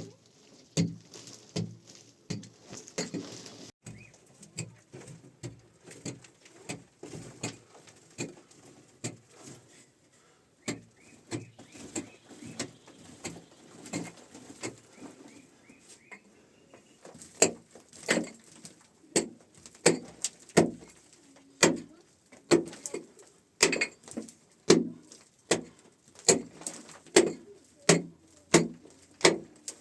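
A hand tool striking earth or stone over and over, as in digging or hammering, settling into a steady beat of about one strike a second in the second half. Faint bird calls in the background.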